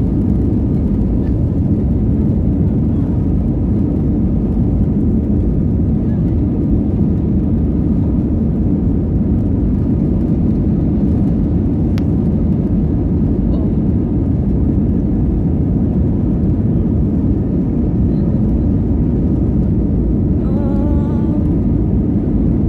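Jet airliner's engines at takeoff power heard from inside the cabin, a loud steady roar mixed with the rumble of the wheels on the runway during the takeoff roll. A single click about halfway through.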